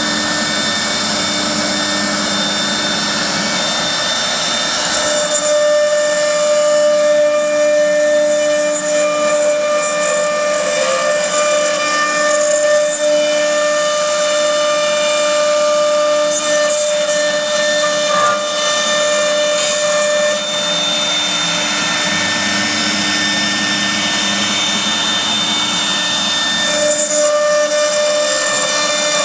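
CNC router spindle running with a steady high whine over a hiss, as it does while cutting; the whine's tones drop out and return a few times.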